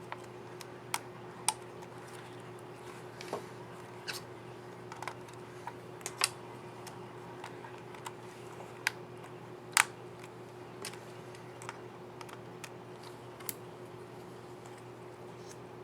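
Irregular small plastic clicks and snaps from a laptop keycap and its scissor mechanism being handled, seated and pressed on the keyboard of an MSI GV62 8RD, over a steady low hum.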